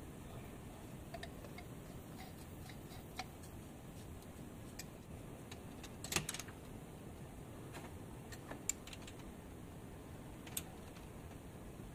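Scattered light metallic clicks and taps as the homemade drill-powered reciprocating saw attachment is handled and the drill chuck is fitted onto its shaft, with a cluster of louder knocks about six seconds in. The drill is not running.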